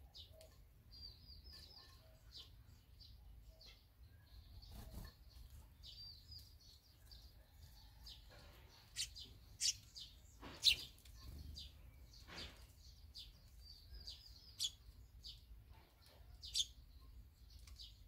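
Barn swallows chirping: quick runs of high twittering, with a few louder, sharp single calls in the second half.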